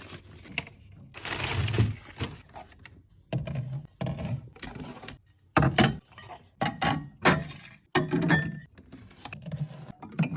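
Aluminium drink cans being handled and set down on a shelf: a string of short knocks and clinks, with a brief rustling burst about a second in.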